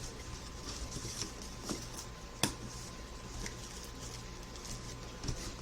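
Soft rustling and scattered small clicks of a cardboard shipping box and its packing being handled and unpacked, with one sharper click about two and a half seconds in, over a faint steady hum.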